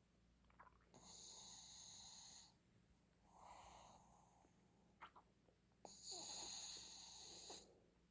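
Shih Tzu snoring softly in its sleep. Two louder, hissy snores about five seconds apart, with a quieter breath between them.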